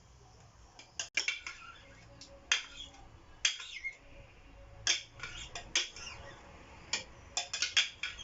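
A metal spoon scraping and knocking irregularly against a blender jug, scooping out thick blended onion-tomato paste.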